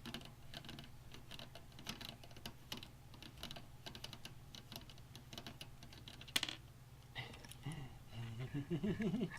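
Light, irregular clicks and taps of small plastic and metal computer parts being handled and fitted during a PC build, with one sharper click about six seconds in, over a low steady hum.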